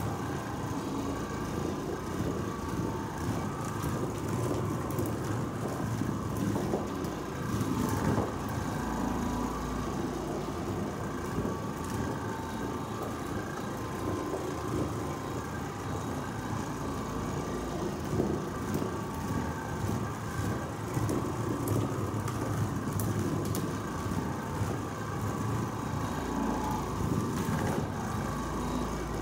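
Oreck Orbiter orbital floor machine running steadily, its motor humming as the pad scrubs the stair carpet.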